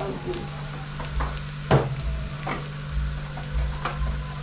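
Onions sizzling as they sauté in a pan, with a few sharp knocks about the middle and near the end, and a steady low hum underneath.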